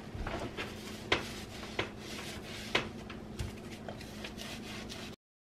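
A small hand tool scraping and tapping against a laminate countertop, with several sharp clicks over light rubbing and a faint steady hum. It cuts off suddenly about five seconds in.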